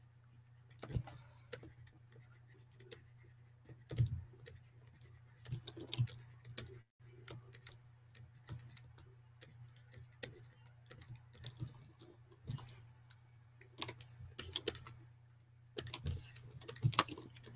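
Scattered, irregular clicks of computer keyboard keys being pressed, one every second or so, over a faint steady low hum.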